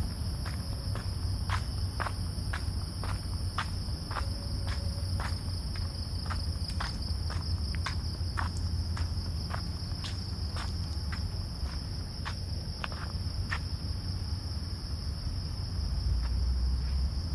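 Night insects trill steadily at a high pitch. Footsteps on a paved path fall about twice a second and stop about three-quarters of the way through. A low rumble runs underneath and gets louder near the end.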